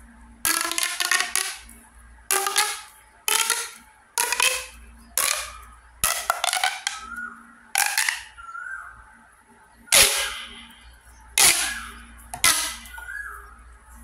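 Plastic straw pop tube fidget toy being pulled out and squashed back by hand: its ridges snap open and shut in quick clicking runs with a hollow ringing tone. About eleven bursts, each under a second, starting sharply and fading.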